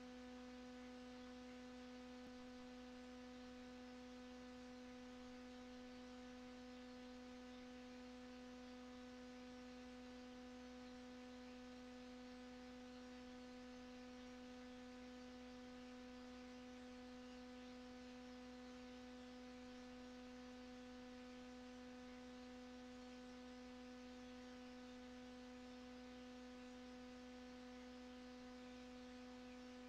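Near silence: a faint, steady hum on one pitch with several fainter overtones above it, and no handling sounds from the parts.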